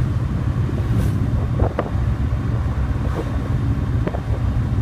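Corvette Stingray's 468 cubic-inch big-block V8 running at a steady cruise, a low even rumble, with wind noise on the microphone.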